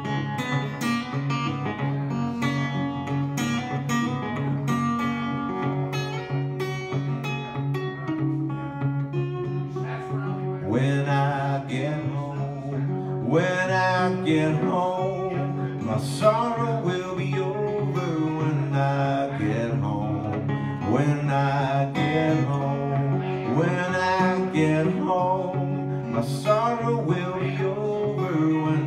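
Acoustic guitar played with a steady low bass under picked notes, alone for about the first ten seconds; then a man's voice sings over the guitar.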